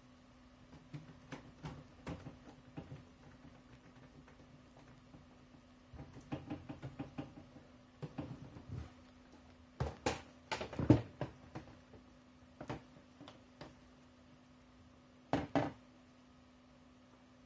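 Small screwdriver driving the tiny side screws back into a laptop LCD panel's mounting frame: scattered light clicks and scrapes, a quick run of small ticks partway through, and a few louder knocks about ten seconds in and again near the end as the screen and tools are handled on a wooden desk. A faint steady hum sits underneath.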